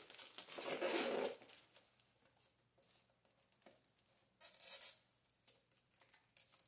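Clear plastic shrink wrap crinkling and tearing as it is pulled off a cardboard board-game box: a rustle of about a second at the start, then a shorter, sharper one about four and a half seconds in.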